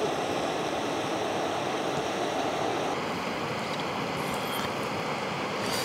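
Mountain river flowing: a steady rush of water.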